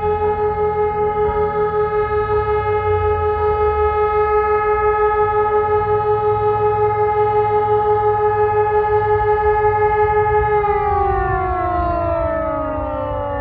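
Civil defence siren sounding a steady, loud tone that wavers quickly in loudness, then about ten and a half seconds in its pitch begins to fall steadily as the siren winds down. It is part of a siren test with faulty on-off timing.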